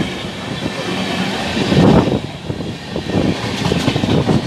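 Passenger train coaches rolling past close alongside the platform: a continuous rumble of wheels on rail with uneven heavier surges, the loudest about two seconds in.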